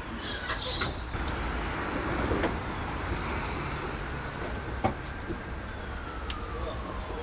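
Steady low rumble of a vehicle outdoors, with a few sharp clicks and a faint tone that slowly falls in pitch over the last few seconds.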